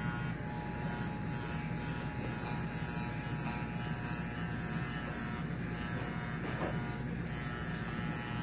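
Electric hair clippers buzzing steadily as they are run over a man's scalp, shaving his head down close.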